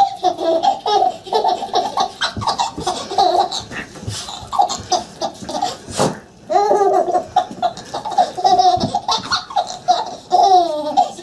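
Baby laughing in long strings of quick, high bursts, with a short pause after about six seconds. A single sharp knock comes just before that pause.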